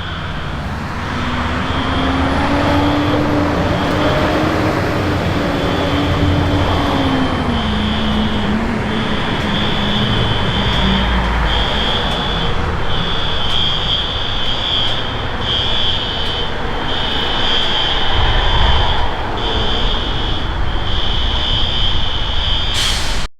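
Fire department ladder truck's engine running as it moves, its pitch rising and then falling, over a high-pitched tone that pulses about once a second.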